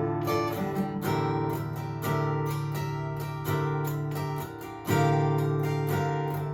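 All-solid-wood acoustic guitar with a spruce top and koa back and sides being played: a series of chords, each struck and left ringing, with the loudest about five seconds in.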